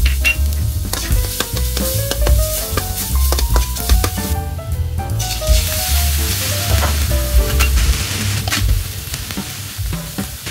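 Minced garlic sizzling in hot oil in a steel wok, the sizzle growing louder about halfway through. Background music with a melody and a low beat plays along.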